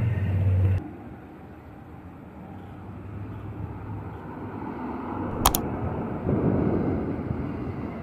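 Outdoor background rumble, likely vehicle or traffic noise. A loud low hum cuts off abruptly about a second in, a single sharp click comes about five and a half seconds in, and the rumble swells shortly after.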